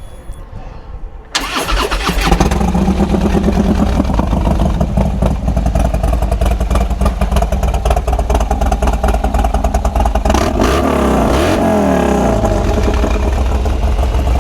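Harley-Davidson Twin Cam 103 V-twin of a 2015 Dyna Street Bob, fitted with S&S 570 cams and a Bassani Road Rage 3 two-into-one exhaust, starting about a second in and settling to a loud, steady idle. It is revved up and back down once about ten seconds in.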